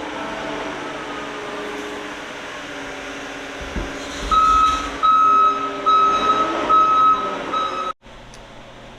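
Deere 331P compact track loader's diesel engine running steadily, then its backup alarm beeping five times as the machine reverses. The sound cuts off abruptly near the end.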